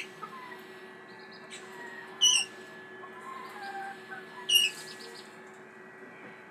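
Red-rumped parrots calling: two loud, sharp chirps a couple of seconds apart, with softer whistled notes in between, over a faint steady hum.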